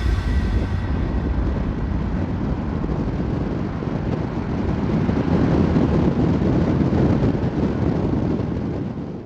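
Steady road and engine rumble of a car driving, heard from inside the cabin; music fades out about a second in.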